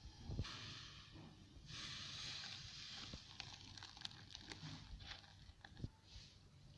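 Faint pouring and splashing of curdled, boiled milk into a cloth-lined bowl, straining the chhena from the whey, with a few soft clicks.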